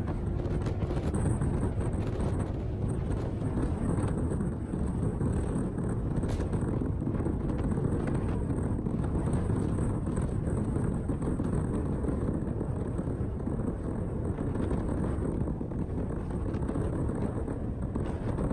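Steady wind rush on the microphone of a moving motorcycle at road speed, mixed with tyre and engine noise from the bike.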